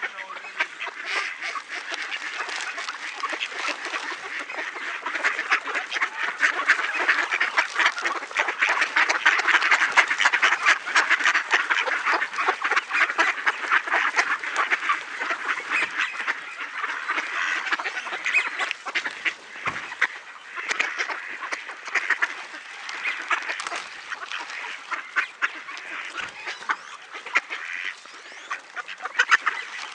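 A crowd of ducks calling and quacking all at once, many short overlapping calls, in a feeding frenzy over scattered grain. The din grows louder for a stretch in the first half, then eases a little.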